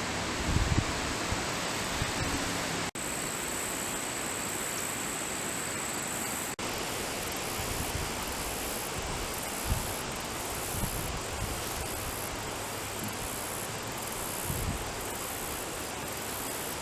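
Steady outdoor hiss in woodland with a thin, high insect trill from about three to six and a half seconds in, and a few soft low bumps. The sound drops out for an instant twice.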